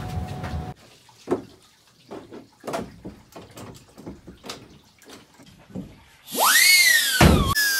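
Scattered knocks and scuffs of people scrambling away, then about six seconds in a loud, high-pitched wailing tone that sweeps up and slides back down, broken off briefly near the end.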